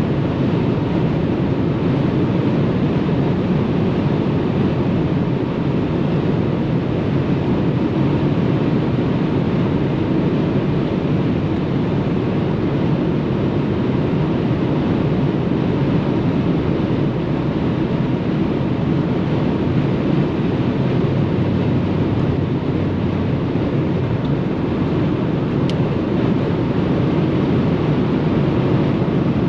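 Steady running noise of a Mercedes-Benz E 200 (W211) petrol saloon driving at autobahn speed: the four-cylinder engine's drone blended with tyre and wind noise, holding an even level throughout.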